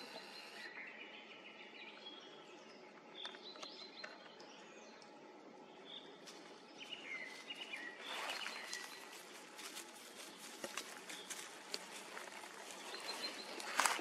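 Woodland birds chirping now and then over a steady outdoor hiss. From about eight seconds in, irregular rustling and crackling sets in and grows toward the end: steps through dry leaf litter and grass as the camera is carried along.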